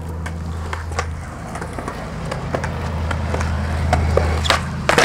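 Skateboard wheels rolling on concrete sidewalk, a steady low rumble. Near the end come a few sharp clacks as the board's tail is snapped down to pop a flatground trick.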